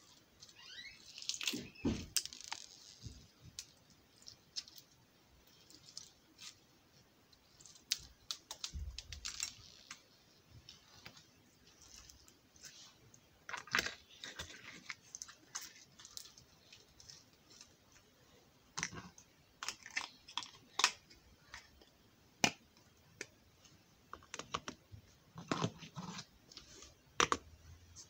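Slime being squeezed and kneaded by hand, giving irregular sticky clicks and pops.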